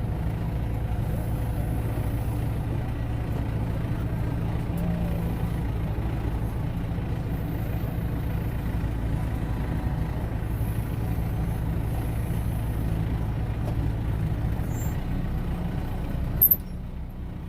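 Kubota M6040 tractor's four-cylinder diesel engine running steadily during loader work, with a sharp click near the end after which the sound is quieter.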